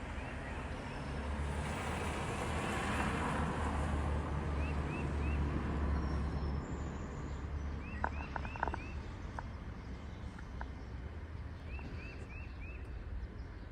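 Steady road-traffic rumble with a vehicle passing a couple of seconds in, over which a bird gives short high chirps in quick runs of three or four, several times.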